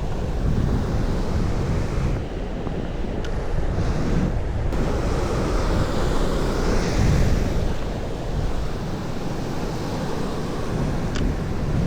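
Sea waves washing and surging, with wind buffeting the microphone; the loudness swells and eases slowly, and two faint ticks come through, about three seconds in and near the end.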